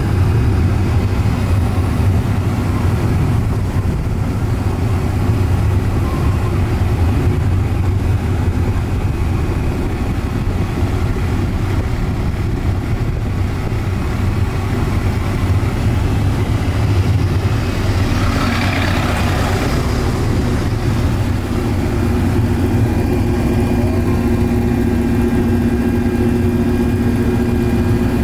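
Casey Jr. Circus Train miniature ride train running along its track, heard from a passenger car: a steady low rumble of the moving train. A brief higher rushing sound comes about two-thirds of the way through, and a steady hum joins near the end.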